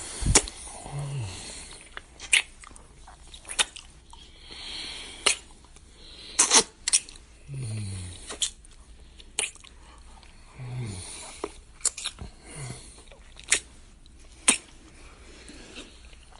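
Repeated kissing sounds: about a dozen wet lip smacks at irregular intervals, with breathy noise and a few short, low, falling hums between them.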